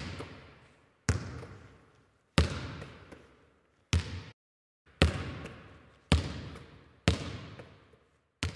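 A basketball bouncing slowly on a hard floor, eight bounces about a second apart. Each bounce rings on with an echo that dies away before the next.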